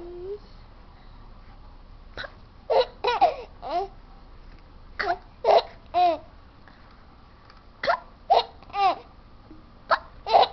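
A baby laughing with hiccups: short vocal bursts coming in clusters of two to four, with pauses between the clusters.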